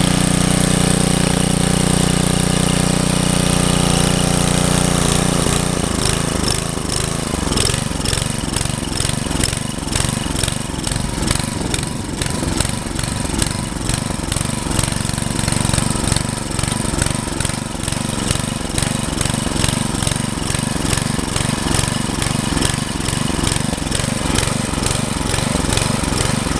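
Briggs & Stratton 5 hp single-cylinder engine on a garden tiller running on a freshly rebuilt carburetor. It runs steady and fast at first, then drops to a lower speed about five seconds in and keeps running evenly, a sign that the carburetor is now feeding fuel properly.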